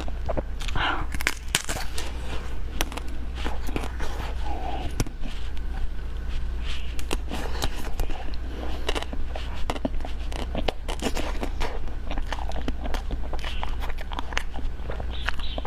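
Close-miked crunching bites and chewing of ice cream and desserts: a dense, continuous run of crisp crackling clicks, over a steady low hum.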